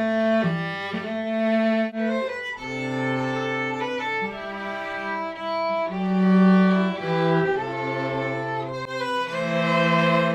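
A string quartet playing: several bowed parts at once, with a low cello line under the violins, in held notes that change every second or so.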